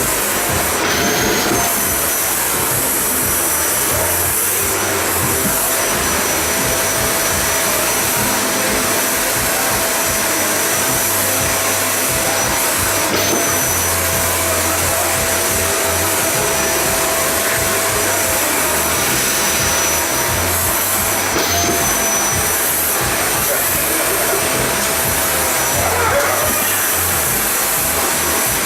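Vacuum cleaner running steadily, its motor whine holding one pitch with a few brief small wobbles.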